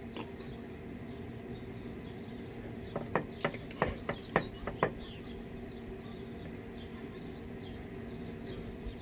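Knife and fork clicking and scraping against a wooden cutting board as a ham steak is cut: a quick run of about eight clicks in the middle. Faint high chirping and a steady hum sit underneath.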